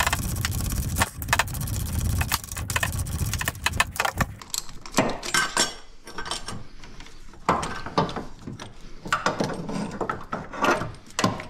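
Pulley puller being turned with a wrench to press the pulley off a power steering pump shaft: a dense run of metal clicking and scraping for about the first four seconds, then scattered metal clinks and knocks as the pulley and puller are handled.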